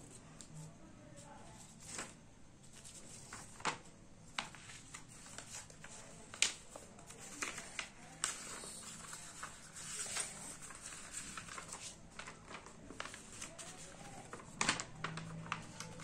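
A sheet of origami paper being folded and creased by hand on a wooden tabletop: irregular rustles, sliding swishes and light taps as the paper is moved and pressed flat.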